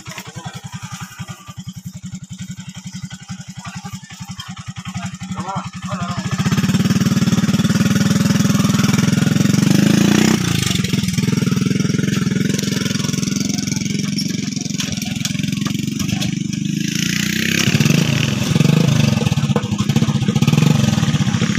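Motorbike engine idling with a fast, even beat, then running much louder from about six seconds in.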